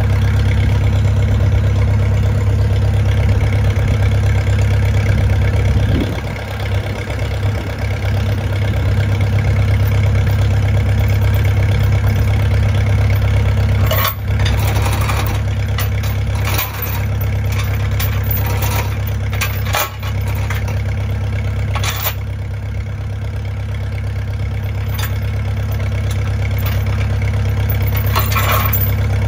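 Old farm tractor's engine idling steadily. About halfway through and again near the end come a few sharp metal clanks, with chain being handled at the end.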